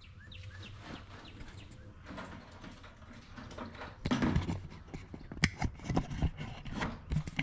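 Irregular knocks, clicks and clatter of handling, starting about four seconds in and getting busier toward the end, as the camera is moved. The quieter opening holds a few faint, short, high descending chirps.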